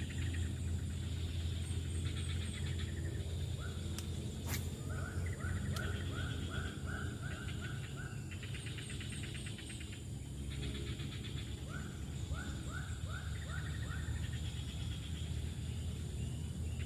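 Outdoor wildlife calls: two runs of short rising chirps, about three a second, over a pulsing trill and a steady low hum.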